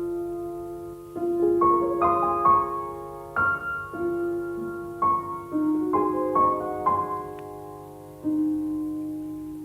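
Slow solo piano music: single notes and soft chords struck every second or so, each left to ring and fade.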